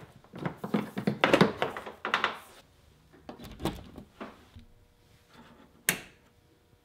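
Power cord of a SawStop jobsite table saw being unwound from its plastic cord wrap and plugged into a wall outlet: a quick run of clicks and knocks in the first few seconds, fainter handling after, then one sharp click near the end as the saw's paddle switch is handled.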